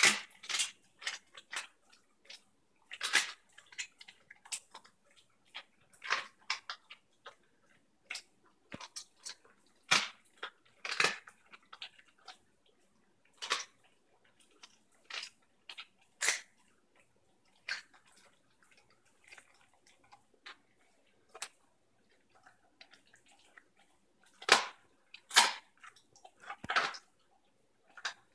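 German Shepherd chewing raw chicken: irregular sharp crunches, some close together and some a second or more apart, with louder runs of crunching about three seconds in, around ten seconds in and near the end.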